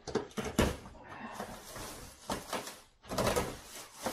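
Cardboard shipping boxes being handled and unpacked: a string of knocks and thumps, the loudest about half a second in, with rustling and scraping of cardboard in between.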